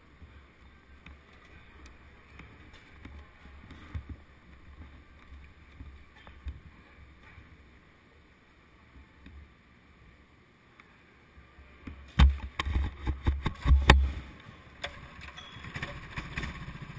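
Low rumble with a few scattered knocks, then about twelve seconds in a cluster of loud knocks and sputters as a small go-kart engine is started, settling into a steady idle near the end.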